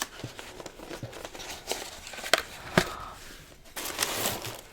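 Soft taps and clicks with a light rustle near the end: makeup packaging being handled during unboxing.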